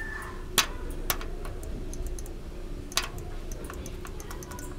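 Clicks of a push button on a wall panel being pressed by a finger: two sharp clicks about two and a half seconds apart, with lighter ticks between them.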